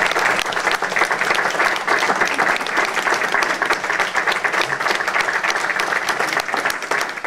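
Audience applauding: many hands clapping in a steady, dense run.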